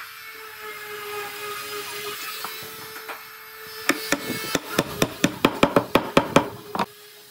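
Hammering on wood: a quick run of about fifteen sharp knocks, roughly five a second, starting about four seconds in after a stretch of faint steady hum.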